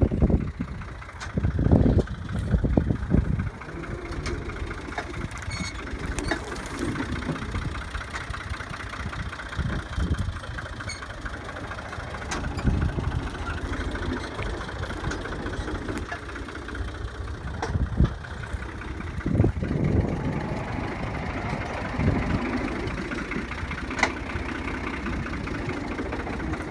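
Farm tractor engine running steadily while it pulls a corn planter through the field, with a few heavier low rumbles about two seconds in and again past the middle.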